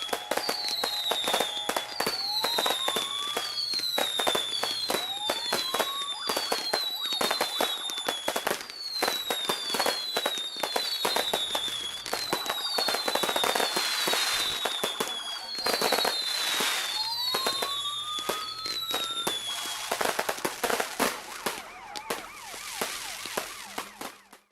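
Birds calling: a high whistled note sliding down, repeated about once a second, with a few lower rising calls, over dense crackling that grows busier about two-thirds of the way through.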